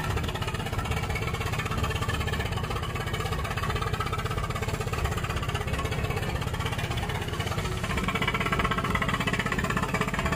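Fishing boat's engine running steadily with a fast, rattling knock, a little louder near the end.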